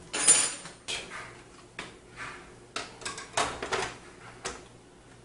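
Clicks, scrapes and knocks of hard plastic and metal as a GeForce GTX 660 Ti graphics card is handled and pushed into a PC case's expansion slot. There are about seven separate knocks and scrapes, the loudest right at the start.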